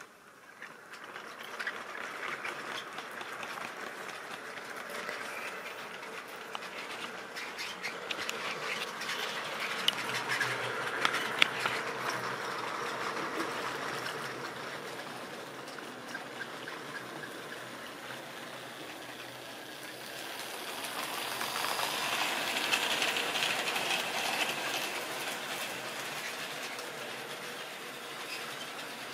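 Model railway train running along the track, its wheels rattling on the rails with occasional sharp clicks. The rattle builds about a second in, swells to a peak about a third of the way through, eases off, then swells again about two-thirds through.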